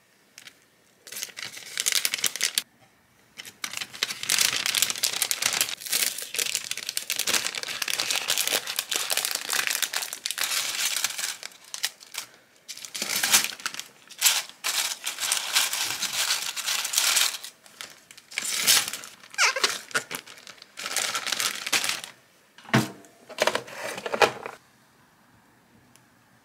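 Packaging crinkling and rustling as it is handled, in irregular bursts with short pauses; the handling stops near the end.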